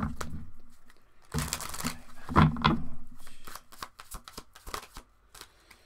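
Tarot cards being shuffled by hand: papery riffling and flicking, busiest in the first three seconds, then thinning to a few scattered card clicks.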